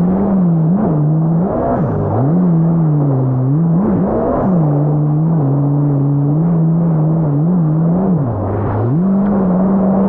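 Yamaha GP1800R SVHO jet ski's supercharged four-stroke engine running under way, its pitch rising and falling again and again with throttle changes, over a steady rush of water and wind.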